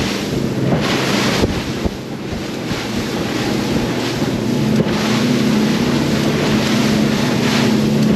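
Outboard engines of a Sea Hunt Gamefish 30 running at speed through rollers, with wind buffeting the microphone and water rushing past the hull. The engine note grows steadier and a little louder about five seconds in.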